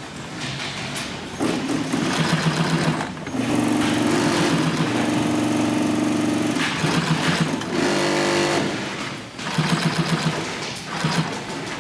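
Adler 205-370 heavy-duty cylinder-arm, triple-feed industrial sewing machine stitching in stop-and-go runs. It starts and stops several times, with one longer steady run in the middle.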